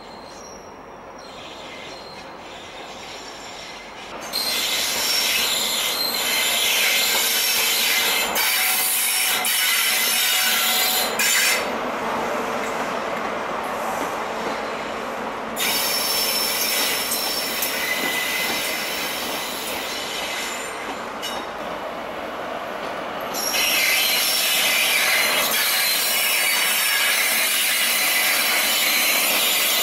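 A Great Western Railway HST with Class 43 power cars running slowly past at the platform, rumbling over the rails with high-pitched squealing from its wheels. The squeal comes in loud spells, starting about four seconds in, again about sixteen seconds in and again near twenty-four seconds, with a few sharp clicks from the track.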